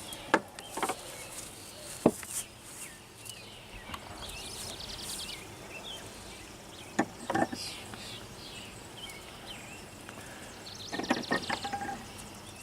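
A few sharp knocks and clunks from wooden beehive boxes and lid being handled as the hive is closed up, the loudest about two seconds in and a cluster near the end, over a steady outdoor background with insects and bird chirps.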